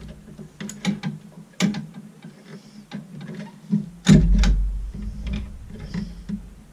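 Ratchet wrench clicking in short, uneven runs as a spark plug is worked loose with a socket and extension. A louder thump comes about four seconds in.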